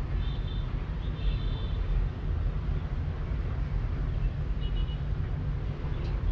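Steady low rumble of distant city traffic heard from a high-rise balcony, with a few faint high chirps in the first two seconds and again past the middle.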